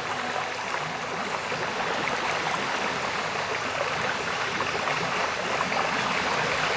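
Water of a flowing stream rushing steadily.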